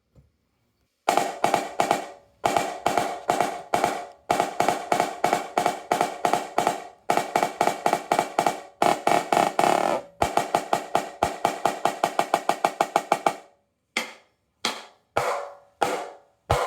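Snare drum played with sticks: fast runs of strokes with a roll in the middle, then four single hits spaced out near the end.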